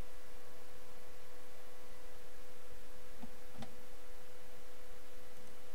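A steady, even electrical tone over a background hiss, the noise floor of a computer-recorded microphone, with a faint click about three and a half seconds in.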